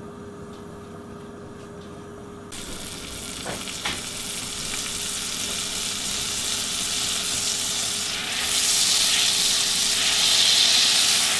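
Butter melting and sizzling in a preheated cast-iron skillet: a steady frying hiss that starts suddenly about two and a half seconds in and grows louder about eight seconds in as the butter is moved around the pan. Before it, only a faint steady hum.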